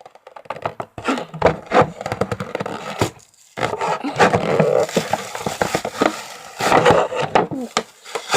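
Toy packaging being pried open by hand: cardboard and plastic crackling, scraping and clicking in quick irregular bursts, with a short pause about three seconds in.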